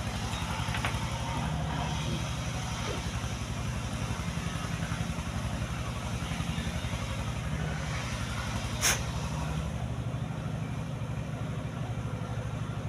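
A steady low engine-like drone with a fast, even pulse, and one sharp click about nine seconds in.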